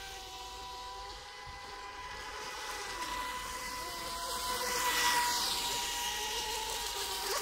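Electric RC speedboats running flat out on open water: a steady high-pitched motor whine with several tones. It swells to its loudest, with a rush of spray hiss, as a boat passes about five seconds in.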